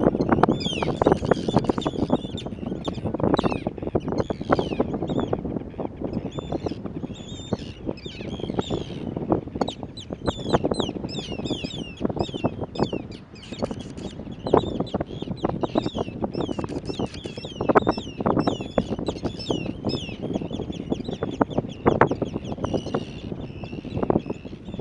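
Many birds calling at once, a dense run of short, sharp chirping calls overlapping one another throughout, over a loud low rumbling noise.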